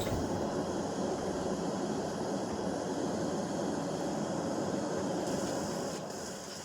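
DREAMIE sleep-aid speaker playing a steady noise soundscape, deep and even in tone, which drops in level about six seconds in.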